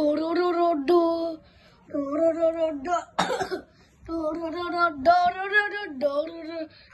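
A high voice singing a melody in held, steady notes with short breaks between phrases. A brief noisy, breathy burst comes about three seconds in.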